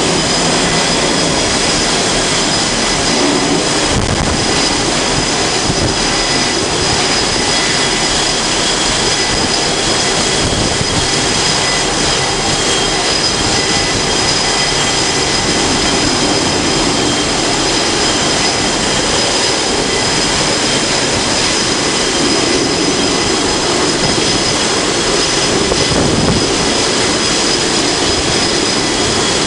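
F/A-18 fighter jet engines running steadily: a continuous loud roar with a steady high-pitched whine over it.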